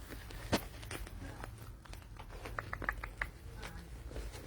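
Young puppies playing: light scuffling and a sharp tap early on, then a quick run of short, high squeaks about halfway through.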